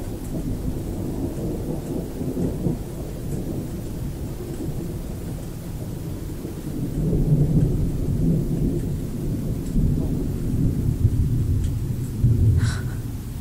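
Thunder rumbling and rolling on without a break, swelling louder twice in the second half.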